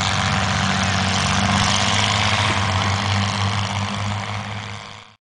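Engines of several old cars and trucks racing on a dirt track: a steady, low engine drone with a wash of noise over it. It fades over the last second or so and cuts off.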